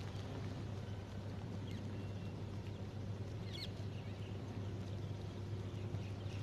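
Motorcycle engine idling with a steady low hum, with a few short bird chirps over it.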